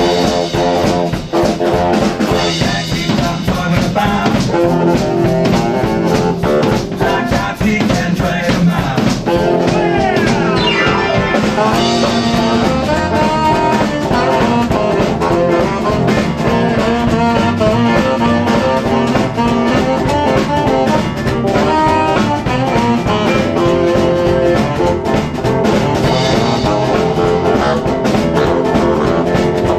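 Live swing band playing an instrumental passage: baritone saxophone over hollow-body electric guitar, upright bass and a drum kit, with steady drums throughout.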